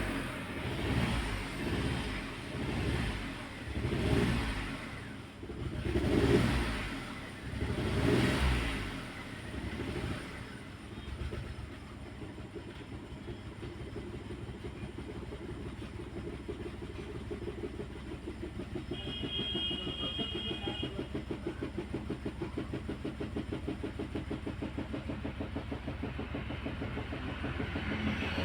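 Car engine with an aftermarket CNG kit, revved up and let fall about every two seconds, then idling with a fast, regular pulse; the engine misfires when it runs on CNG, though it runs smoothly on petrol. A short electronic beep sounds about two-thirds of the way in.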